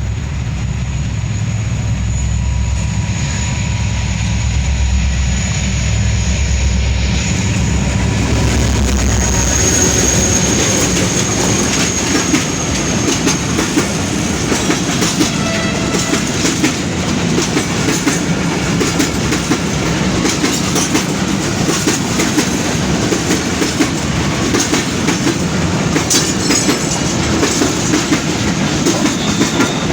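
Freight train of oil tank wagons rolling past slowly: a deep diesel-electric locomotive rumble for the first seven or eight seconds gives way to the steady clickety-clack of wagon wheels over the rail joints, with thin high wheel squeals now and then.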